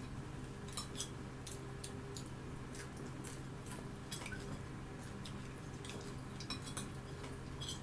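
Metal fork clinking and scraping on a ceramic plate: irregular light clicks, a few sharper ones, over a steady low hum.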